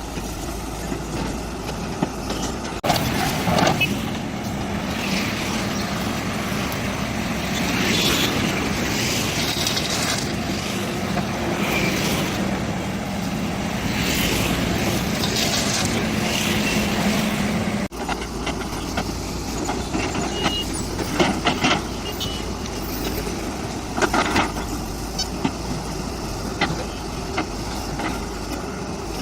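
Small motor of a home-made miniature bulldozer running steadily, with intermittent scraping and knocking. The sound breaks off abruptly and changes about three seconds in and again about eighteen seconds in.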